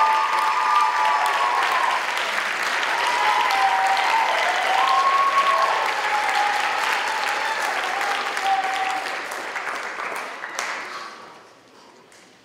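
Audience applauding, with high calls and whoops over the clapping; the applause fades away near the end.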